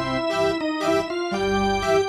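Background music: a keyboard tune over a steady beat.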